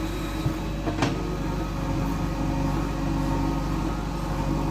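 Heavy diesel engine running steadily, with a sharp knock about a second in.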